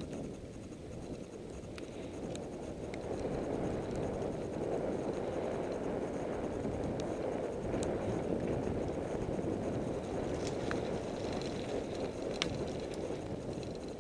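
Wind rushing over a bicycle-mounted action camera's microphone, damped by a foam cover, with road and tyre noise beneath; it swells a few seconds in and eases off near the end. A few light ticks come through now and then.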